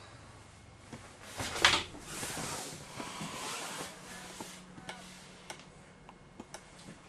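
Handling noise in a small room: a brief loud rustle about a second and a half in, some scuffing after it, then a scatter of light clicks and knocks.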